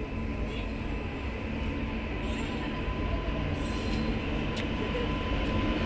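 Electric freight locomotive hauling a rake of empty BCNHL covered wagons as it approaches, a steady rumble growing slowly louder with a faint steady hum.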